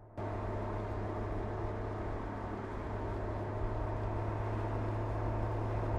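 Mercedes-AMG CLS 53 driving at a steady speed, a constant engine hum under a spread of road and wind noise. It cuts in suddenly just after the start.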